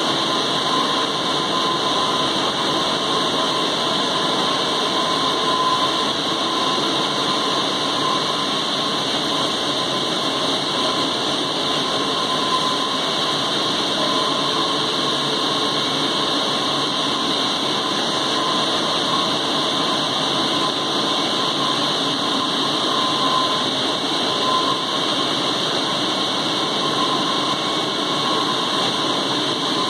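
Direct warping machine running steadily: an even mechanical hum and hiss with a thin high whine held throughout.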